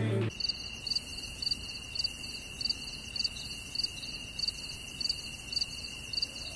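Night insects chirping: a regular pulsed chirp, about three a second, over a steady high trill. It cuts in abruptly just after the start and runs on past the end.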